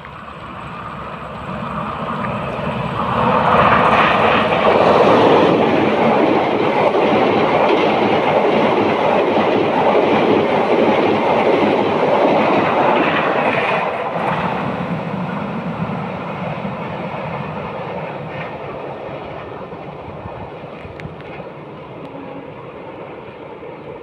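A passing train: the rumble of its wheels on the rails builds up over the first few seconds, stays loud for about ten seconds, then slowly fades away.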